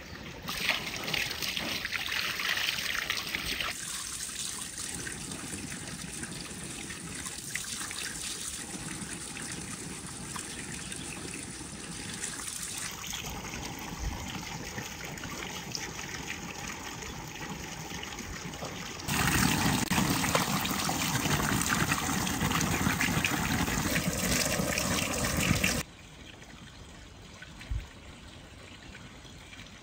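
Running water trickling and splashing, heard across several edited shots. It is loudest for several seconds past the middle, then drops to a faint background near the end, where there is a single soft knock.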